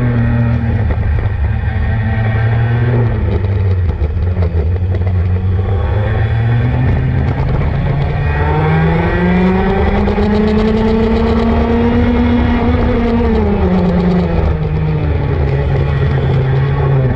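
Racing kart engine running hard around a track, its pitch climbing as it accelerates and falling as it slows. It holds its highest note through the middle, then drops away about 13 seconds in.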